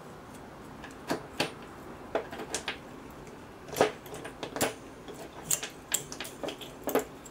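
Irregular small clicks and clacks as a metal relay assembly is handled and turned over during disassembly, its parts and wires knocking together; the loudest clack comes about four seconds in.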